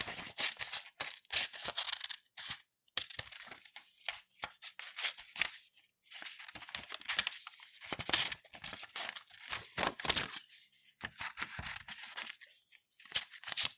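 Scissors cutting through A4 sheets of paper: crisp snipping and crackling strokes in runs of a second or two, with short pauses between cuts.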